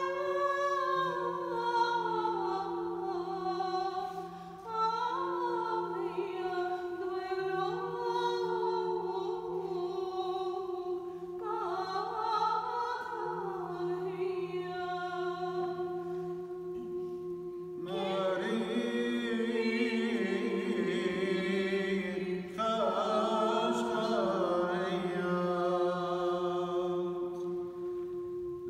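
A man chanting an Aramaic madrasha hymn, the melody moving over a steady held drone note. The singing grows fuller about eighteen seconds in.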